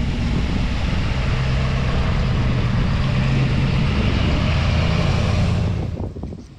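Ford F350 Excursion superjeep on huge air-floater tyres driving on wet tarmac: a steady engine hum under a broad hiss. The engine note drops in pitch about three-quarters of the way through, and the sound cuts off sharply near the end.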